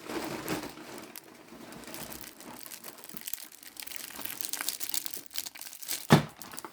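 Packaging crinkling and rustling as a parcel is handled and opened, with one loud thump about six seconds in.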